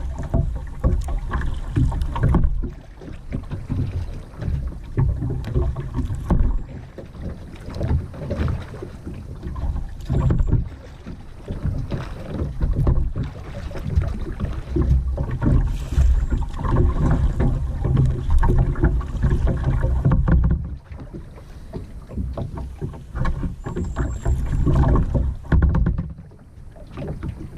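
Kayak paddling: paddle blades dipping and splashing in the water in uneven strokes, over a low rumbling buffeting on the microphone.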